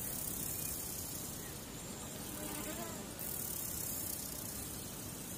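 Steady hiss of background noise, with a faint wavering buzz about two and a half to three seconds in.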